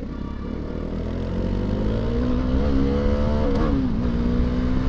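Bajaj Dominar motorcycle's single-cylinder engine accelerating hard, its note rising and growing louder, dipping briefly twice as it shifts up through the gears.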